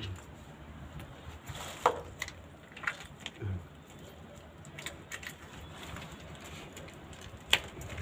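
Hands pulling the large, hard scales off a parrotfish one at a time in a plastic tub. Scattered sharp clicks and scrapes sound over a low background, with the loudest about two seconds in and again near the end.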